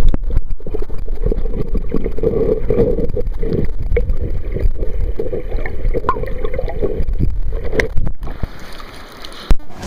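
River current heard through a camera held underwater: a loud, muffled, low rushing with a few knocks. It drops briefly and grows quieter near the end.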